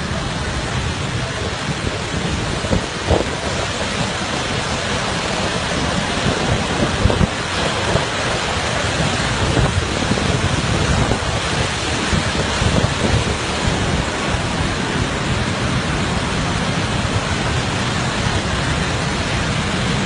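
Waterfall pouring and splashing across the road onto a vehicle driving through it: a loud, steady rush of falling water that gets a little louder about six seconds in.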